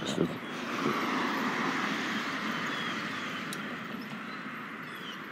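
A vehicle passing on the street, its tyre and engine noise swelling about a second in and then slowly fading.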